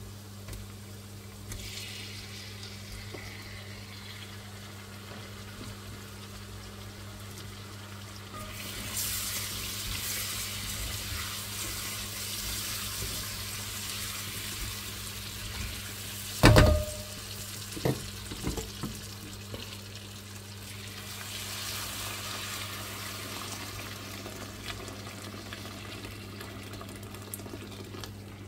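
Water running from a kitchen tap in two spells, with a loud knock and a couple of lighter clicks between them, over a steady low hum.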